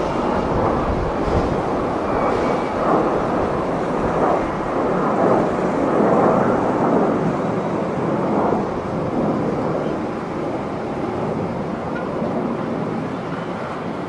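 Gulfstream G650 business jet's twin Rolls-Royce BR725 turbofans roaring as it climbs out after takeoff, a steady jet roar that swells to its loudest about six seconds in and then slowly fades as the aircraft draws away.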